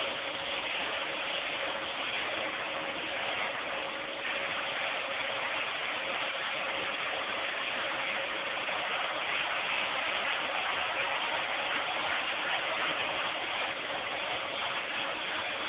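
Vacuum cleaner running steadily: a continuous rush of air over a constant motor hum.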